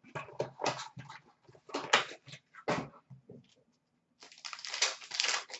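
Hockey card pack wrappers crinkling and tearing as packs are opened, in short irregular crackles, with a denser run of crinkling about four and a half seconds in.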